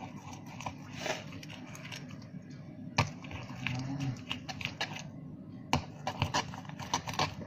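Irregular light clicks and taps from slime being stirred in a container while activator is mixed in, with two sharper knocks, about three and six seconds in.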